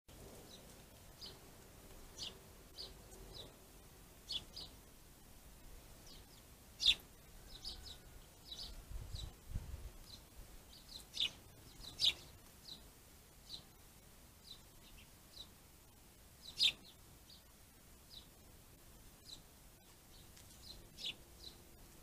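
Small birds calling with short, high chirps at irregular intervals, with a few louder, sharp calls that sweep downward in pitch. A brief low rumble about nine seconds in.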